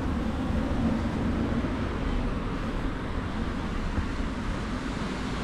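Steady street noise from road traffic: a low, even rumble of cars on the road.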